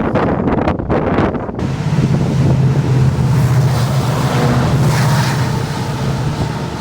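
A train going by: a loud, steady rushing of wheels and air, with a few knocks in the first second or so. A steady low hum runs underneath from about two seconds in, with wind buffeting the microphone.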